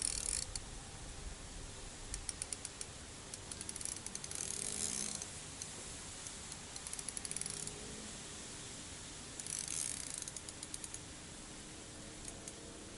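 Fishing reel ratcheting in about four short spurts of rapid ticks, each about a second long.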